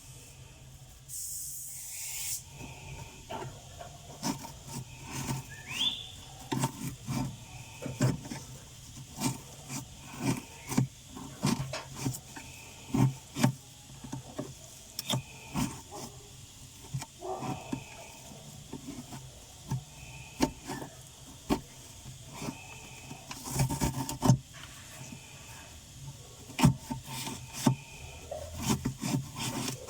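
Irregular clicks, knocks and rubbing from hands working on and cleaning a refrigerator's freezer compartment, over a steady low hum. A short hiss comes about a second in.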